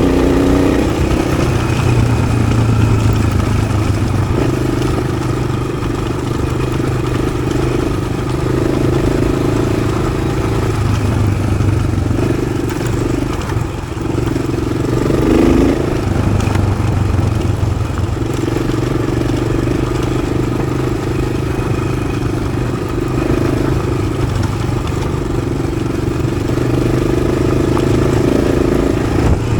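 Yamaha XT600's single-cylinder four-stroke engine running under way through an Arrow exhaust, its note rising and falling with the throttle. The engine eases off about halfway through, then picks up again.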